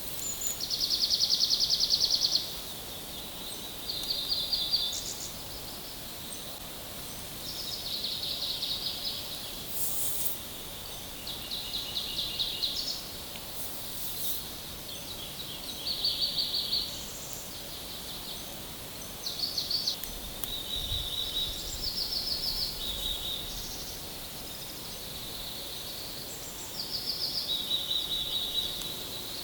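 Songbirds singing short, high trills one after another every couple of seconds, at varying pitches, over a steady background hiss.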